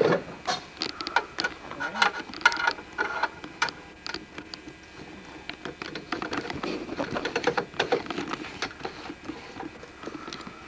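Rapid, irregular clicking and clattering of handled hard parts. It is busiest in the first few seconds and again in the second half.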